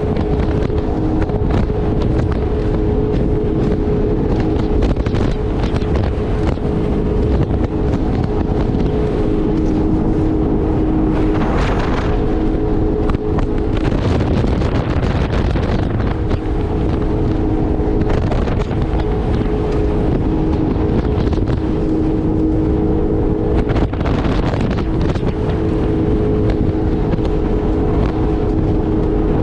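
Jet ski engine running at speed with wind noise on the microphone; its steady engine note breaks up twice into a noisy rush.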